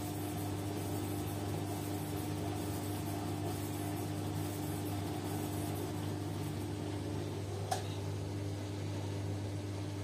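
Beko front-loading washing machine running its wash cycle: a steady motor hum as the drum turns the load through water, with a single sharp click about three quarters of the way in.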